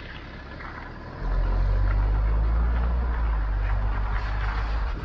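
Car driving on a wet road, heard from outside the car, with tyre hiss. About a second in, a loud, steady low rumble comes in suddenly as the car pulls away.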